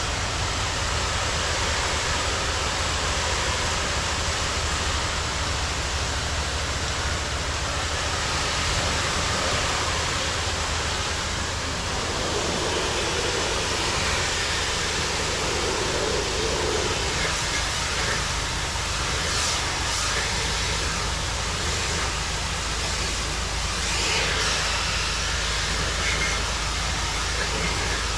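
Steady hiss of a pressure washer spraying water, with the rig's engine running underneath.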